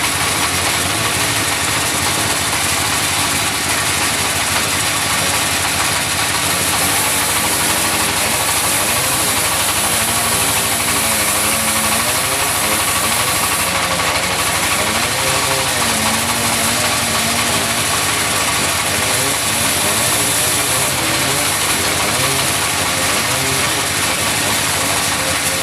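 Sawmill machinery with its engine running steadily and loudly, a dense hiss over a low engine note that wavers slightly in pitch. The hiss is typical of a wood saw at work.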